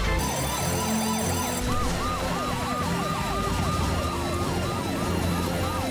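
Cartoon emergency-vehicle sirens, several wailing up and down quickly and overlapping. A short high electronic tone sounds at the start.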